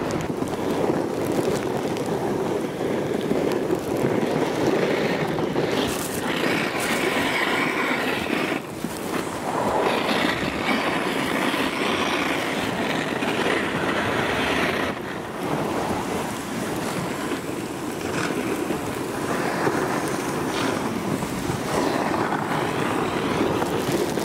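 Wind rushing and buffeting against the microphone, a loud steady roar that rises and falls in gusts.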